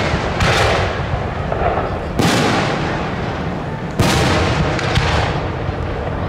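Aerial firework shells bursting overhead: three loud bangs about two seconds apart, each followed by a long fading echo.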